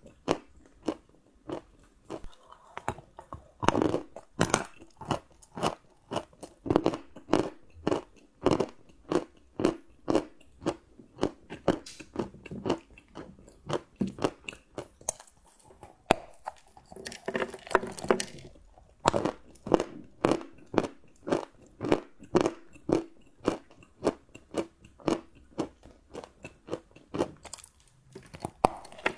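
Close-miked chewing of crunchy chocolate: steady, rhythmic crunches at about two a second, with a denser, longer spell of crunching a little past the middle.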